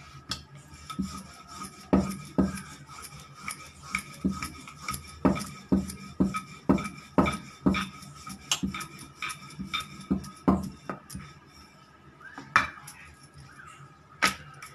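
A wooden rolling pin rolling out a large disc of wheat-flour dough on a round board, knocking and rubbing against the board about twice a second. The strokes thin out to a few scattered knocks near the end.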